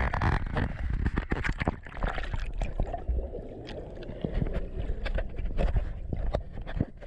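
Sea water sloshing and splashing around the microphone, with many small irregular knocks and clicks over a low rumble.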